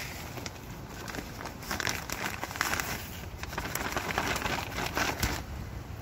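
A plastic soil sack crinkling as soil is poured from it into a plastic tub, with irregular crackling and rustling that grows louder in the middle.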